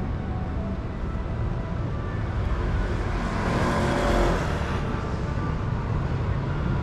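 A car passing on the street, growing louder to its closest about four seconds in and then fading, over a steady low rumble of road traffic.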